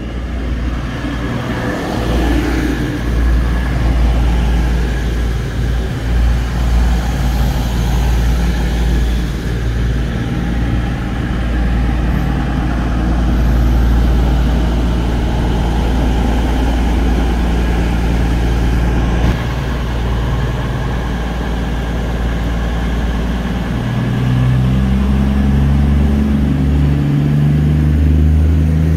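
CrossCountry Class 221 Super Voyager diesel-electric multiple unit running along the platform, its underfloor diesel engines giving a loud, steady rumble. Near the end the engine note changes to a different set of steady tones.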